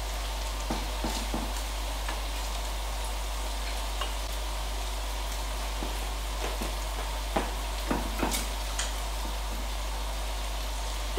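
Food sizzling in a frying pan on a gas hob, with a steady low hum underneath and scattered light clicks of a utensil against the pan and plate.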